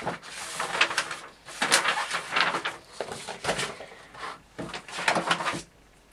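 Paper rustling: loose printed sheets being handled and pages of a spiral-bound booklet being turned, in several short crinkling swishes.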